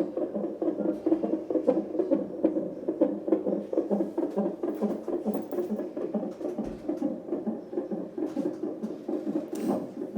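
Fetal heartbeat picked up by a CTG monitor's Doppler ultrasound probe: a fast, steady whooshing pulse.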